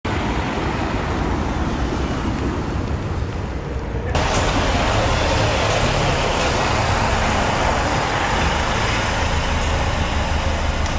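Road traffic noise: a steady low rumble of car engines and tyres. About four seconds in it suddenly gets louder and hissier.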